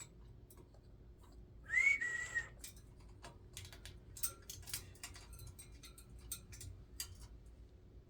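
A Congo African grey parrot gives one short whistle, rising and then held steady, followed by a run of light clicking and tapping.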